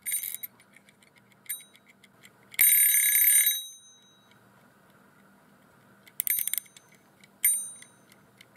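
A mechanical clock-type timer's alarm bell rings in short bursts as its exposed gear train is turned by hand. There is a brief ring at the start, a longer ring about two and a half seconds in, and two more brief rings near the end, with faint clicks of the gears between them.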